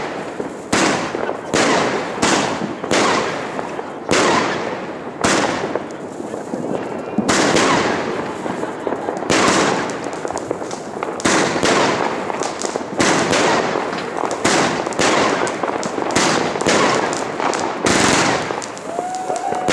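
A 61-shot Allevi F4 fireworks battery (cake) firing in rapid succession. Each comet launches with a thump and bursts overhead, about one to two shots a second, bunching closer together partway through.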